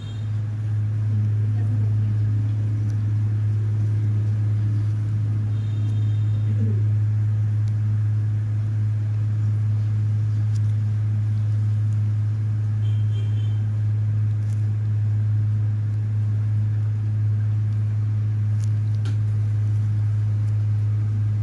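A loud, steady low hum, unchanging throughout, with faint voices murmuring in the background early on.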